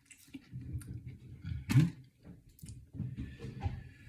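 Close, wet chewing of a bite of fried chicken sandwich, irregular and crackly, with one louder, sharper mouth sound a little under two seconds in.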